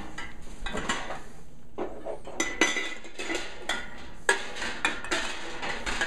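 Glass quart canning jars clinking and knocking against each other and against the enamelware canner pot as they are set into the hot water to sterilize, in a run of irregular clinks, some briefly ringing.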